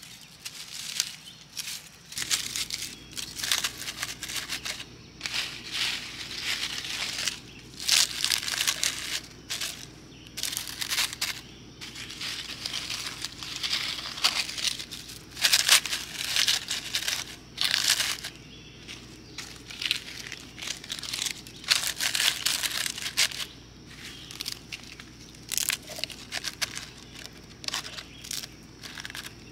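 Dry leaves and bark crinkling in irregular bursts as hands crumple them and stuff them into the cuts of a Swedish torch log.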